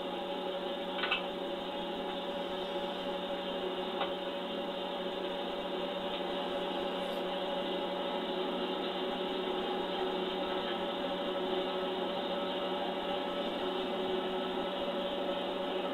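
Metal lathe running steadily, its three-jaw chuck spinning a short round workpiece, with an even motor-and-drive hum. A light click about a second in and another about four seconds in.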